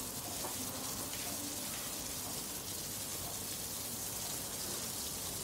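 Skewered prawns shallow-frying in oil in a pan, giving a steady sizzle.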